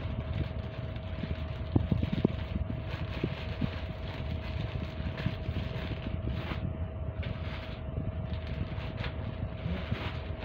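Crinkling and rustling of plastic packaging bags as clothing is handled, with a couple of light knocks about two seconds in, over a steady low background hum with a thin constant whine.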